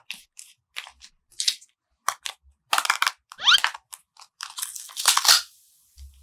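A string of short, irregular crunching sounds, with a rising whistle-like swoop about halfway through.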